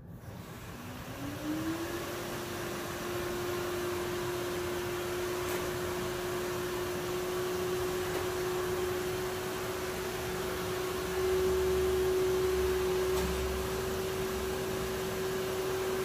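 Samsung Powerbot R7040 robot vacuum starting a cleaning run. Its suction motor spins up with a rising whine, then runs steadily on high power as a held hum over rushing air. It grows louder for a couple of seconds about eleven seconds in.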